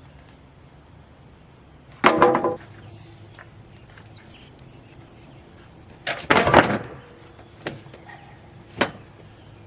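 Cedar boards knocking and clattering as they are handled and set down: two loud clatters about two and six seconds in, then two lighter knocks near the end.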